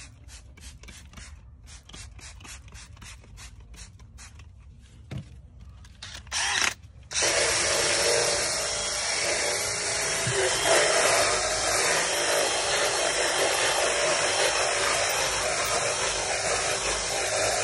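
Quick, evenly repeated short scratchy sounds for the first few seconds. About six and a half seconds in, a cordless drill blips once, then from about seven seconds in it runs steadily, spinning a scrub brush against a vinyl door panel.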